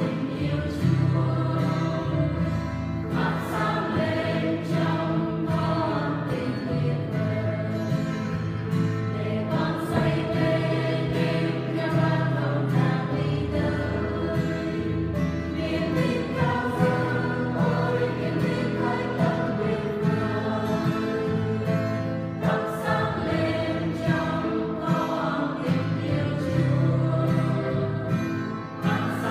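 Church choir singing a Vietnamese hymn, voices holding long notes over a steady bass line.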